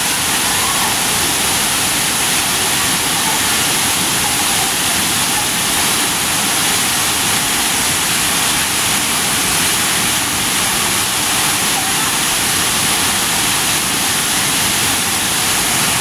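Steady rushing of a waterfall pouring into a rock pool, with no change in level.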